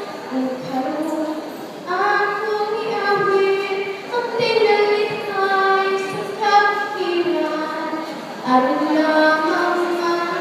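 A female solo singer singing into a handheld microphone, holding long notes in phrases that break off briefly about two, four and eight and a half seconds in.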